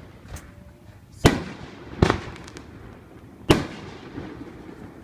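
Fireworks going off: three loud sharp bangs, about a second, two seconds and three and a half seconds in, each trailing off briefly, with a smaller pop near the start and a faint crackle after the second bang.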